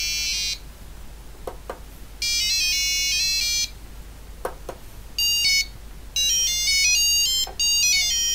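Laser harp kit's small on-board buzzer playing buzzy electronic notes in four bursts as a hand breaks the laser beams. The pitch steps from note to note, and the last burst runs for about two seconds. Faint taps fall between the bursts.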